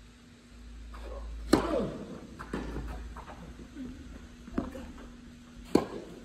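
Tennis balls struck by racquets in a doubles rally: sharp hits about a second apart, the loudest about a second and a half in, with a low steady hum underneath.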